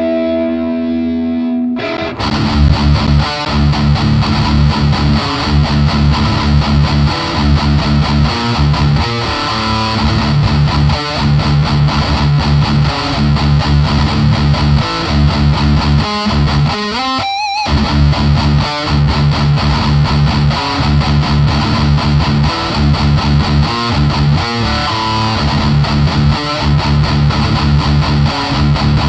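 Distorted electric guitar through a Vox combo amplifier. A held chord rings for about two seconds, then fast, rhythmic distorted riffing runs on, with a bent, wavering high note about seventeen seconds in.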